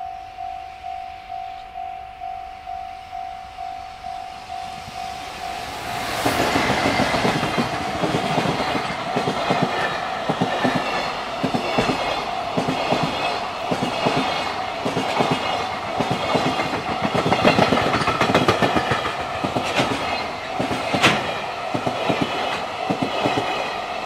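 Japanese level-crossing alarm dinging steadily about twice a second. About six seconds in, a container freight train hauled by an EF210 electric locomotive reaches the crossing, and its wagons' wheels clatter loudly over the rails while the alarm keeps ringing underneath.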